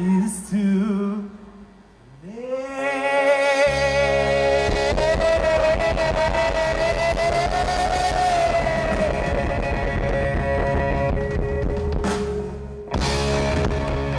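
Live rock band: a male singer slides up into one long held note over a sustained electric guitar and bass chord. The chord cuts briefly near the end and a last chord follows, the close of the song.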